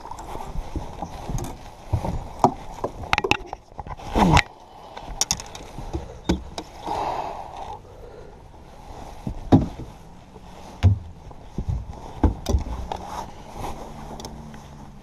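Irregular knocks, clatter and rustling as a bass is landed in a landing net and handled in a fishing boat, the net and gear bumping the boat. A faint steady hum comes in near the end.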